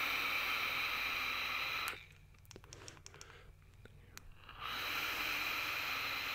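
Air hissing through a Hellvape Destiny RTA's airflow holes during a direct-to-lung draw, with the airflow set near half open. The hiss stops about two seconds in. After a quieter stretch with a few light clicks, a second draw begins about four and a half seconds in.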